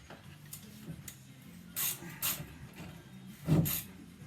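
Hand ratchet clicking in a few short strokes as a rock-slider mounting bolt is tightened, with a louder knock about three and a half seconds in.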